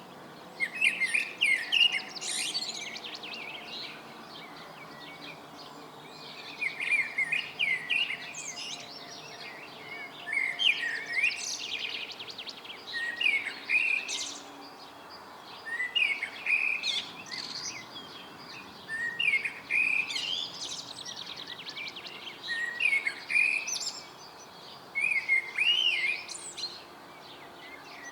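Songbirds singing: a song phrase of warbling notes ending in a fast trill, repeated about every three seconds, over a faint steady background hum.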